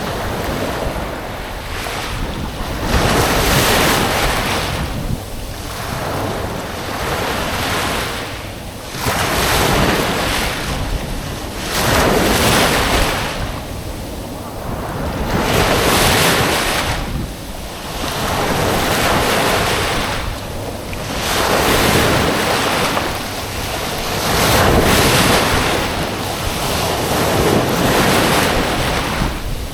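Small waves breaking and washing up a beach, one surge every few seconds, with some wind noise on the microphone.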